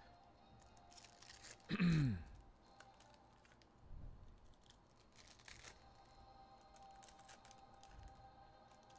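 Foil trading-card packs being opened and cards handled, with faint crinkling, rustling and light clicks. About two seconds in, a louder brief sound slides quickly down in pitch.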